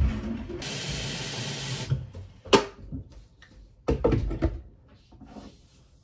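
A steady hiss that starts and stops abruptly and lasts about a second and a half, followed by a sharp knock and then a quick run of clunks as a jug and mug are handled on a kitchen counter.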